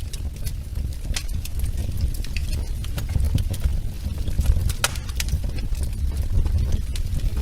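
Wood fire burning in a fireplace: a steady low rumble with irregular sharp crackles and pops, a couple of louder snaps.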